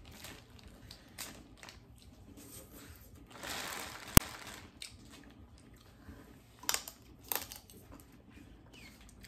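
Plastic seafood-boil bag crinkling and rustling as hands dig through the food, with scattered crunches and clicks of shells and eating. A single sharp crack about four seconds in is the loudest sound, and two more clicks follow near the end.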